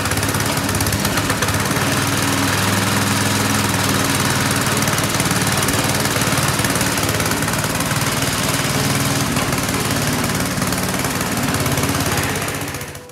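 Small single-cylinder 6.5 hp petrol engine of a homemade mini tractor converted from a tiller, running steadily. The sound fades out near the end.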